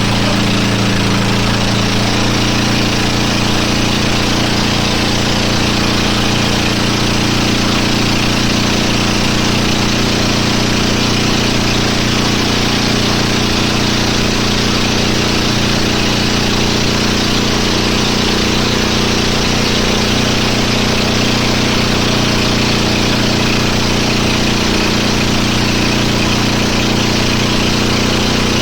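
A motorboat engine running at a steady pitch under a dense steady rushing noise, with no change in speed.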